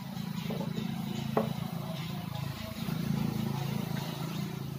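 Kirloskar Varsha single-cylinder diesel engine running with a steady low, pulsing beat, and one sharp metallic click about a second and a half in. The mechanic has diagnosed this engine's starting trouble as a worn cylinder bore and piston.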